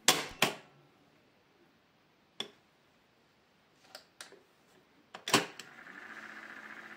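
Piano-key transport controls of a JVC CD-1770 cassette deck clunking as keys are pressed and latch, with a few lighter switch clicks in between. After a loud double clunk about five seconds in, the tape mechanism starts running with a steady whir.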